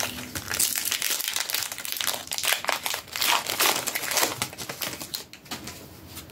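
Foil wrapper of a Pokémon card booster pack crinkling unevenly as it is handled and opened.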